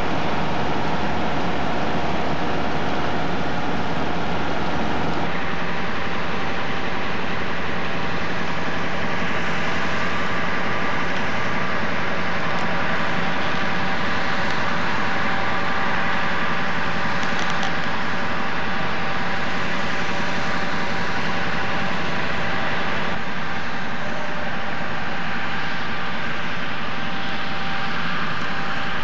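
Fire apparatus engine running steadily: an even, continuous noise with a steady hum and whine, with no break. The sound changes slightly about five seconds in and again near the end.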